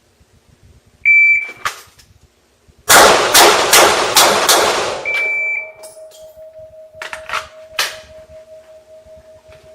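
Shot timer's start beep, then five pistol shots fired in quick succession, then the timer's par-time beep about four seconds after the first. A faint steady tone lingers afterwards.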